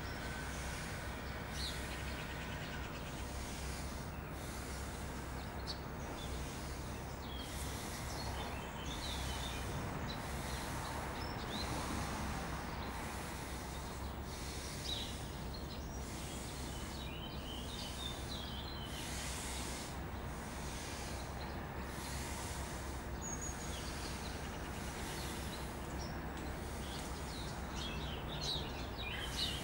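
Steady room hiss and low hum with small birds chirping faintly outside. Through it runs a soft rhythmic breathing hiss about once a second, the forceful exhalations of abdominal-contraction breathing. A few louder knocks come near the end.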